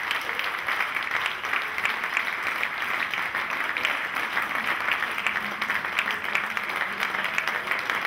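Audience applauding steadily: dense clapping from a large crowd.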